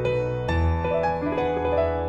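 Background music: a gentle piano tune with a sustained bass note coming in about half a second in.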